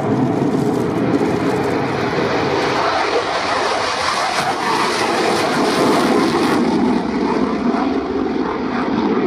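Jet noise from a Royal Netherlands Air Force F-16's single engine at full power with the afterburner lit, on its takeoff run and climb-out. The sound is loud and steady throughout.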